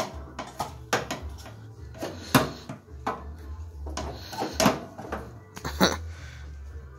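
A string of irregular knocks and clunks, about nine over several seconds, from the riding mower's plastic hood and body panels being handled, over a steady low hum.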